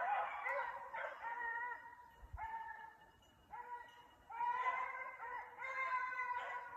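Hunting dogs baying in a series of drawn-out calls, some overlapping, as they run a hare. There is a short lull partway through before the baying picks up again.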